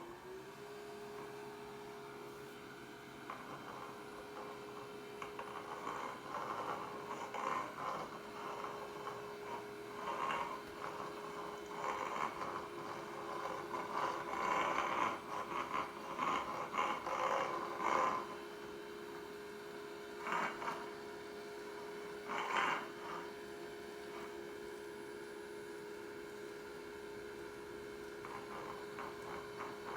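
Homemade DC-powered vacuum cleaner's motor spinning up and then running with a steady hum, with irregular rushing, scraping bursts through the middle.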